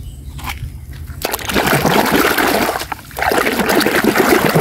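A few light knocks, then a toy being scrubbed in a tub of muddy, soapy water, with continuous splashing and sloshing that breaks off briefly near the middle.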